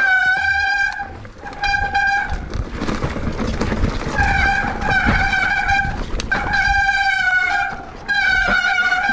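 A horn sounding in a series of about six steady-pitched blasts, each under two seconds, with a rushing noise in the gaps between them.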